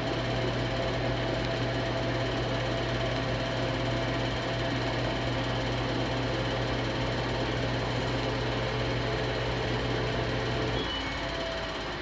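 Washing machine drum spinning at maximum speed: a steady motor hum and whine. About eleven seconds in, the drive cuts out and the spin begins to slow down.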